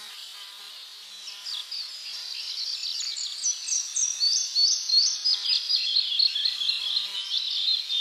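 Chorus of songbirds, many quick high chirps and trills overlapping, growing louder about three seconds in.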